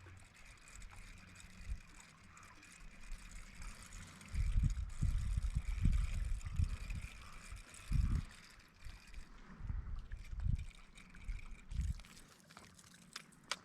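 Water lapping and sloshing against the hull of a small fishing boat, with a run of irregular low bumps through the middle.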